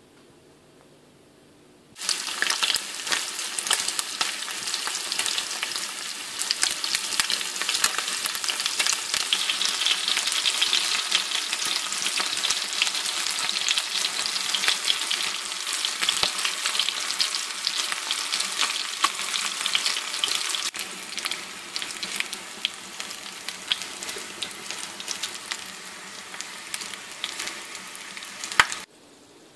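Marinated chicken wings frying in hot oil in a frying pan: a dense, steady sizzle full of small crackles and pops. It starts about two seconds in, turns a little quieter after about two-thirds of the way, and cuts off suddenly just before the end.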